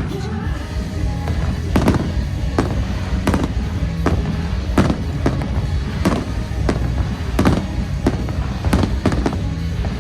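Aerial fireworks shells bursting in a steady run of sharp bangs, roughly one or two a second, over loud music.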